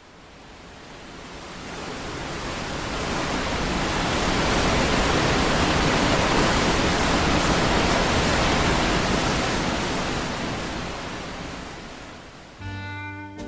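Rushing water of a woodland waterfall cascade, a steady even rush that swells in, holds for several seconds and fades away. Music with pitched instrument notes comes in near the end.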